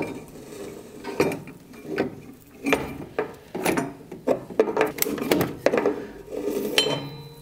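Irregular metal clinks and knocks as a snowblower's drive shaft is slid out and its friction disc assembly is lifted free of the frame. There is a brief metallic ring near the end.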